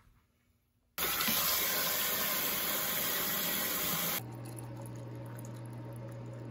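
About a second in, a kitchen faucet starts running into a stainless-steel sink full of dishes, with a steady rush of water. A few seconds later it gives way to a softer pour of hot water into a tumbler, over a steady low hum.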